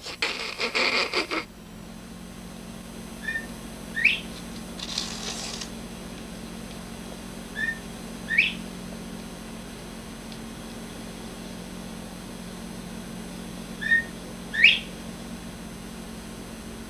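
A bird repeats a two-note whistled call three times, about five seconds apart: a short note followed by a sharply rising one. A steady low hum runs underneath.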